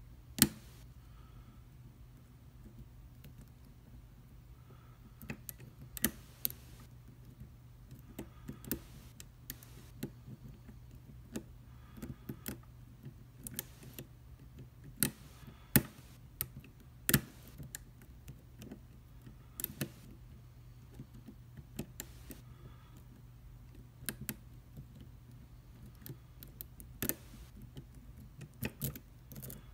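Lock picks and a tension wrench working the pin tumblers of a USA-made Commando padlock, with its serrated key pins and ball bearings: irregular small clicks and ticks, with a sharp click about half a second in. A faint steady low hum runs underneath.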